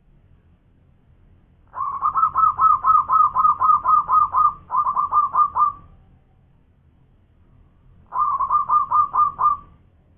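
Zebra dove (perkutut) singing its staccato cooing song: a fast run of ringing notes, about four a second, lasting about four seconds with a brief break, then a second, shorter run near the end.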